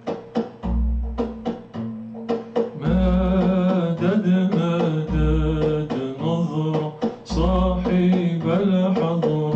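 Introduction of a nasheed: a deep drum beat about every two seconds under short plucked notes, joined about three seconds in by a held, wavering melody.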